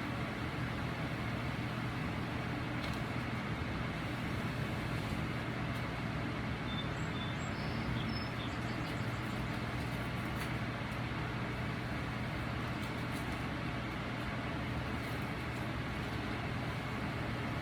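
A steady, unchanging machine hum with a constant rushing noise, with a few faint short high chirps about halfway through.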